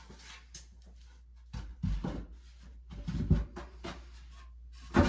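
Wooden shelf board knocking and bumping as it is worked into a tight-fitting nook, a few dull thuds with a sharper knock near the end.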